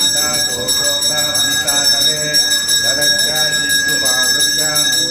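Temple bell rung rapidly and without pause, its ringing tones held steady, over voices chanting Sanskrit mantras.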